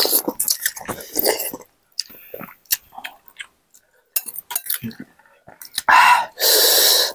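Eating meatball noodle soup: noodles slurped from a bowl, a fork and spoon clinking against it, and chewing. Near the end comes a loud breathy rush of noise lasting about a second.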